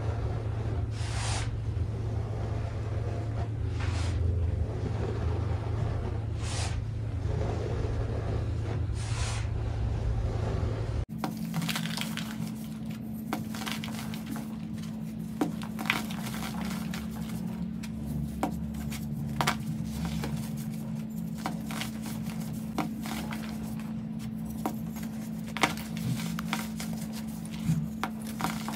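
Hands squeezing and crushing a packed mass of baking soda, a dense steady crunching. About eleven seconds in it changes to hands crumbling gym chalk: sparser sharp cracks and snaps of breaking chalk pieces over a steady low hum.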